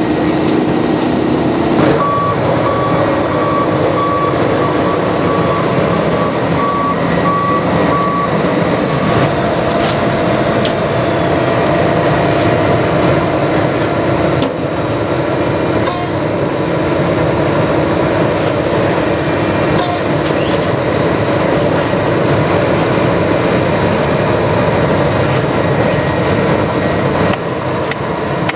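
Heavy asphalt-paving machinery running steadily with a diesel drone, while a backup alarm beeps at an even pace for about six seconds near the start.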